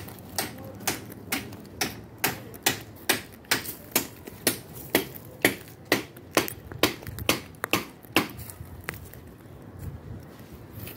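Footsteps: a steady run of sharp, evenly spaced steps, about two a second, stopping about eight seconds in.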